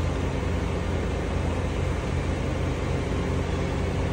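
Mobile crane's diesel engine running steadily as it hoists a heavy machine part.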